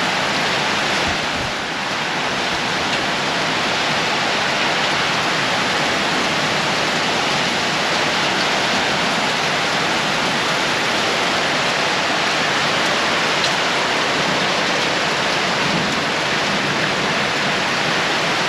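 Heavy rain pouring down in a storm: a steady, dense hiss of downpour that holds at the same level throughout.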